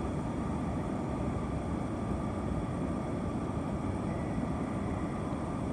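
Steady low rumbling background noise with a faint, even high hum over it, and no distinct events.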